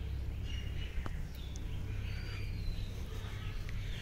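Faint bird chirps, several short calls in the first couple of seconds, over a steady low rumble of outdoor ambience.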